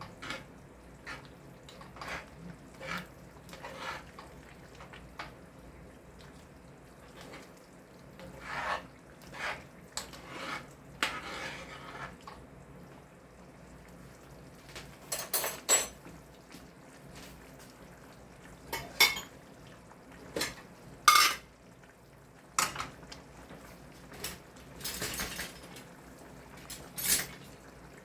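Metal utensil clinking and scraping against a soup pot in irregular knocks, with a few louder clanks in the second half.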